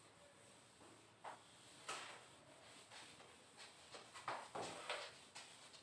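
Whiteboard duster wiping across a whiteboard: a series of faint swishing strokes, coming faster in the second half.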